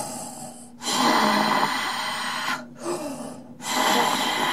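Darth Vader's mechanical respirator breathing, hissing through the mask: two slow breaths, each a softer stretch followed by a louder one lasting about two seconds.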